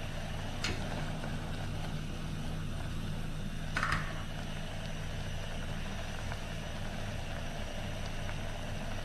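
A steady low hum throughout, with a light click about a second in and a louder metallic clink just before four seconds, as the stainless-steel pot's wire handle is gripped on the portable gas stove.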